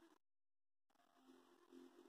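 Near silence: faint room tone, with a brief complete dropout in the audio near the start.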